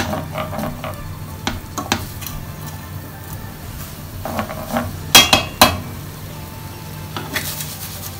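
Fried rice being stirred and scraped with a utensil in a stainless steel frying pan, with a faint frying sizzle. The utensil knocks against the pan now and then, loudest in three quick knocks about five seconds in.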